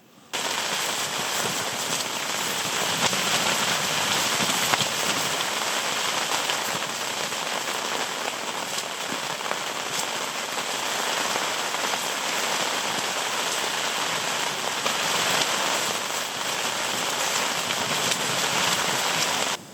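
Heavy rain coming down hard in a storm: a dense, steady hiss full of small drop hits.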